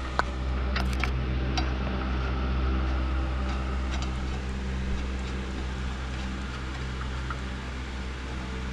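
Steady low machine hum, like a fan or motor running, with a few light metallic clicks in the first second and a half and another about four seconds in.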